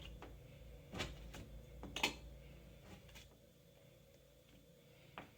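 A plastic key card pressing and packing epoxy putty into a hole in drywall: a few faint taps and scrapes, about four over several seconds.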